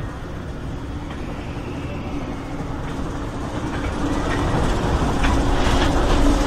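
Runaway Mine Train, an Arrow Development mine train roller coaster, climbing its chain lift: a steady rumble and rattle of the lift chain and train with a faint hum. It gets louder and clicks more over the last couple of seconds as the train enters the covered shed at the top of the lift.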